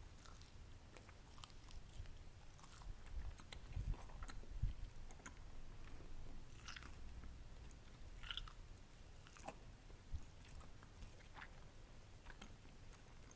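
Close-miked chewing of a baked egg wrap: soft, crunchy bites with small wet mouth clicks and crackles, irregular, denser about a third of the way in and again past the middle.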